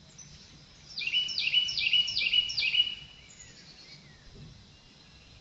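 A songbird singing a quick phrase of about five repeated high notes, each falling in pitch, over a faint low background hum.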